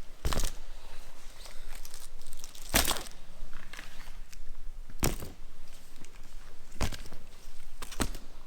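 Five sharp knocks, spaced irregularly about one and a half to two seconds apart, over a faint background hiss.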